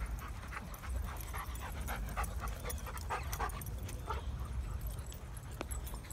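Dogs at play giving a quick run of short barks and yelps for the first four seconds or so, over a steady low rumble.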